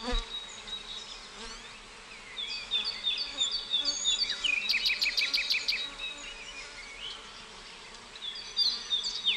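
Outdoor garden ambience: small birds singing in short repeated chirps, with a quick trill about halfway through, over a steady high insect buzz.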